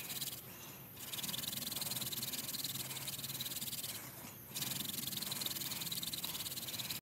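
Goldenrod hand-drill spindle spun between the palms against a dry, pre-punk tulip poplar fireboard: a steady hissing grind of wood on wood. It breaks off briefly twice, about half a second in and again just past four seconds.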